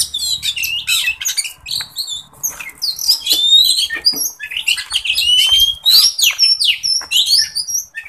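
Oriental magpie-robins (kacer) singing: a rapid, varied run of whistles, rising and falling glides and sharp chirps that goes on without a break.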